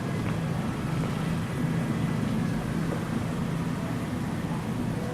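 River Thames water flowing gently, under a steady low hum of engines.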